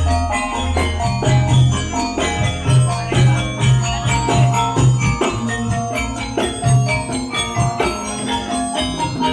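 Campursari ensemble playing an instrumental passage: struck metal gamelan keys ringing in a quick, steady rhythm over deep, pulsing bass notes.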